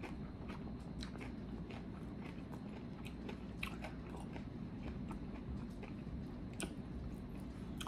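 A person chewing a mouthful of crisp corn tostada topped with shrimp ceviche: quiet, irregular crunches and mouth clicks, a few a second.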